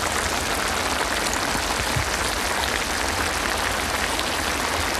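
Paella simmering in a wide iron pan, with a steady sizzling and bubbling hiss as the rice and langoustines cook in the steam.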